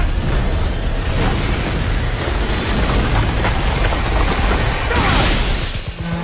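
Film sound effects of a building being torn apart: continuous heavy rumbling explosions, with a louder crash of breaking debris about five seconds in.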